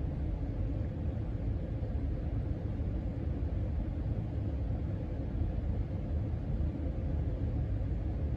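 Casablanca Panama 5 ceiling fan coasting during spin-down with the power off: a steady low rumble of moving air from the blades, with a faint steady hum.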